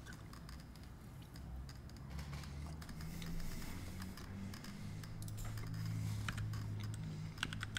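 Typing on a computer keyboard: scattered key clicks from about three seconds in, quickening into a fast run near the end, over a steady low hum.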